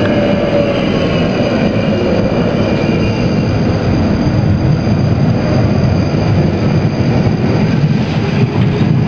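London Underground train heard from inside the carriage as it pulls out of a station: a steady, loud rumble and rattle of wheels on rail and running gear, with no breaks.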